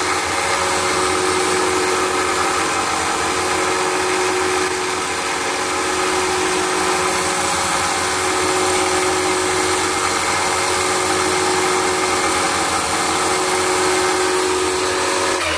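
Linisher (bench belt sander) running steadily and noisily while an air-rifle piston seal is held against the moving abrasive belt, sanding a little off its edge so that it fits the cylinder.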